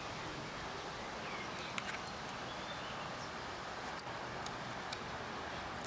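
Steady outdoor background noise with a few faint small clicks and one or two faint chirps.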